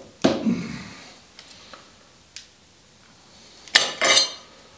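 A metal tool knocking and clinking against the forge press's steel plate: one sharp knock at the start, a few faint ticks, then two bright, ringing clinks near the end.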